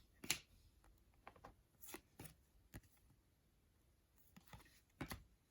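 Faint, scattered soft clicks and rustles of trading cards being handled and flipped through by hand, with a slightly louder pair about five seconds in.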